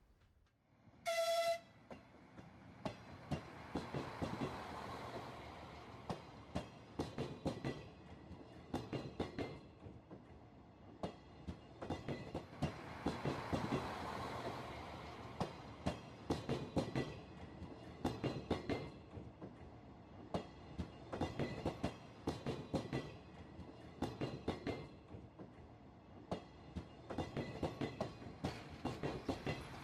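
Passenger train giving one short horn blast, then rolling past with its wheels clicking steadily over the rail joints, swelling and fading as the coaches go by.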